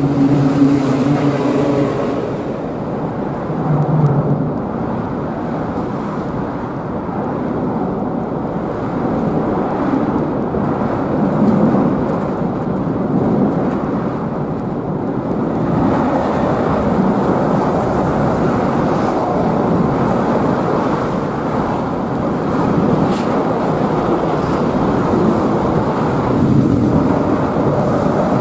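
Harbour ambience with ships under way: a steady, dense rumble of engines and water noise, with a few short humming tones in the first couple of seconds.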